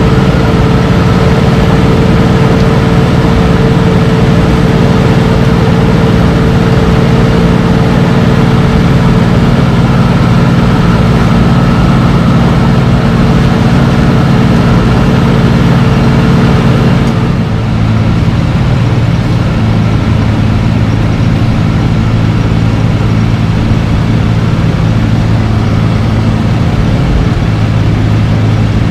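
Wirtgen W1200F cold asphalt milling machine working a road surface: a loud, steady heavy diesel drone with a constant hum over a noisy hiss. About 17 seconds in it turns slightly quieter and duller, and the high hum falls away.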